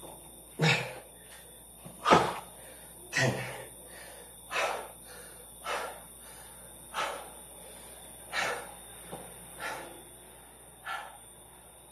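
A man breathing hard after a strenuous exercise set. Deep gasping breaths come about every second and a bit, loudest at the start and growing softer as he recovers.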